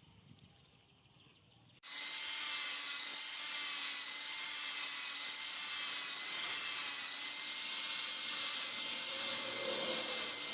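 Electric polishing or grinding machine starting up abruptly about two seconds in, then running steadily with a motor whine and a high abrasive hiss as a dagger blade is polished.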